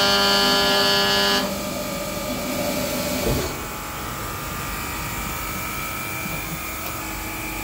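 CNC milling machine spindle with a 12 mm end mill running a light marking pass: a steady high whine of several tones that cuts off abruptly about a second and a half in. A quieter machine sound follows until about three and a half seconds in, as the spindle head rises clear of the part, and then a steady machine hum remains.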